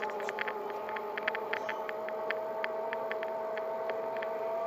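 Electric bicycle's 250 W hub motor whining as it drives the bike: a few steady tones held level, with quick irregular clicks and rattles over them. The motor is almost silent to the rider, so the whine comes out much louder on the recording.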